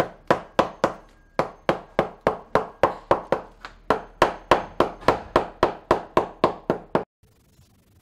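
Shoemaker's hammer striking the leather sole of a handmade shoe held on the lap: a steady run of sharp knocks about four a second, with a brief pause after about a second and a sudden stop about seven seconds in.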